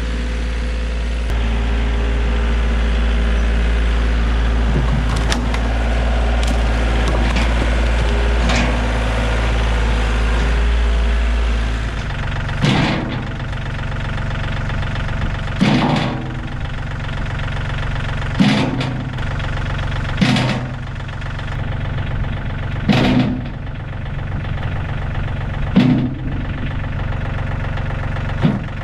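An engine runs steadily, changing its note about twelve seconds in. After that, short sharp bursts come every two to three seconds, seven in all.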